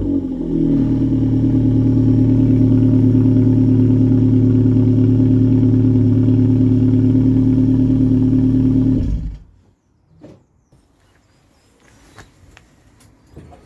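Ford Mondeo Mk3 engine and exhaust running at a steady idle, with the leaking exhaust clamp just replaced, then cutting off abruptly about nine seconds in. A few faint clicks follow.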